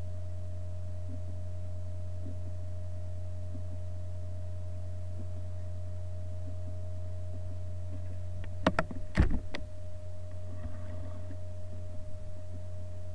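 Steady low electrical hum with a faint higher steady tone over it, broken about nine seconds in by a few sharp knocks.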